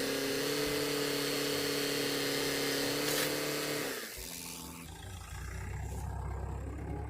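A motor spins up, runs at a steady pitch for about four seconds, then winds down and stops; a low rumble follows.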